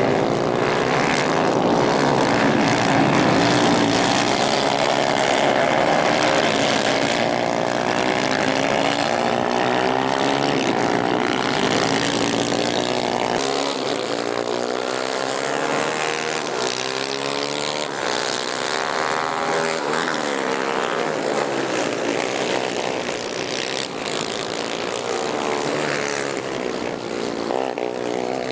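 Several 250 cc racing kart engines at full race speed, their notes rising and falling and overlapping as the karts accelerate and lift off around the dirt track.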